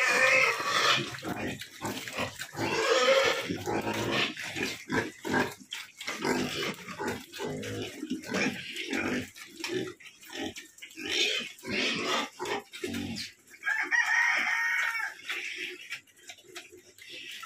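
Several young Duroc and Large White pigs feeding together, grunting and chewing in a steady, irregular run of short sounds, with a few high squeals.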